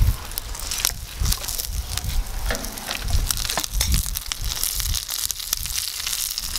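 Wood fire crackling with scattered sharp pops, and food sizzling in a cast-iron skillet set on the grate over it. Irregular low thumps sit underneath.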